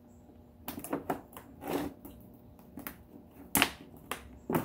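Hard plastic clip and panel parts of a pirate ship prop clicking and knocking as a clip is pushed onto a plastic bar: a run of sharp clicks, the loudest about three and a half seconds in.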